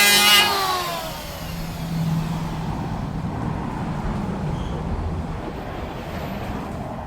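A woodworking power tool's motor whine cuts off about half a second in and spins down with a falling pitch. A low rumble follows and slowly fades.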